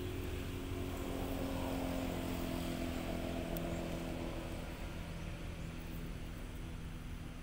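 Steady drone of an engine from a passing vehicle, swelling slightly in the first couple of seconds and then slowly fading.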